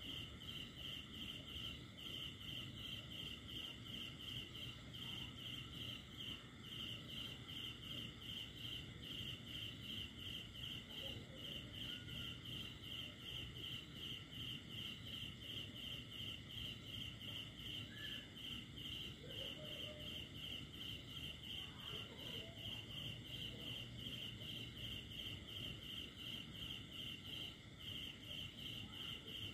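Cricket chirping steadily: a high, even pulse of about three chirps a second, with a few brief pauses, over a soft low background hiss.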